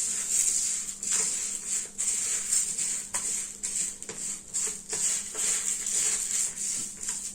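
Paint-coloured rice grains being stirred together in a bowl, with an irregular, continuous rattle and patter of dry grains.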